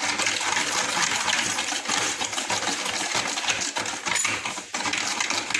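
Cake batter of eggs, sugar and oil being whisked in a bowl: a fast, continuous run of metal clinking against the bowl.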